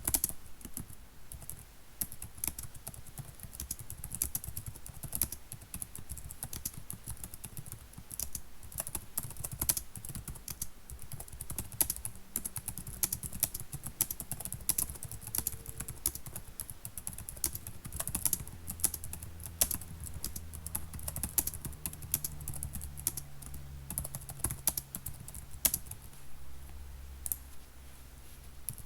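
Typing on a computer keyboard: a steady, irregular stream of key clicks at a quick pace, with a faint low hum underneath.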